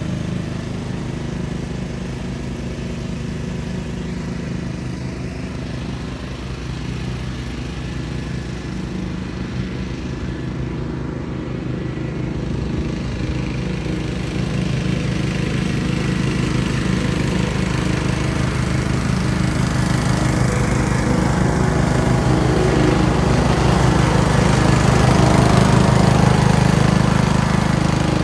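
Simplicity Coronet rear-engine riding mower running steadily while mowing. The engine grows louder in the second half as the mower comes closer, and is loudest a couple of seconds before the end.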